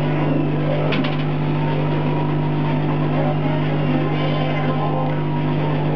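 CO2 laser cutter running over a steady low hum, its stepper motors whining in tones that glide up and down in pitch as the cutting head traces small circles in acrylic sheet. A sharp click about a second in.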